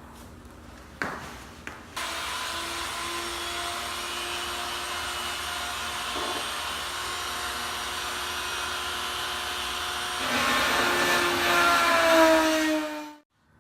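Dremel rotary tool switched on about two seconds in, running with a steady high whine while cutting slots in the bumper. About ten seconds in it grows louder and its pitch drops, then it cuts off suddenly near the end.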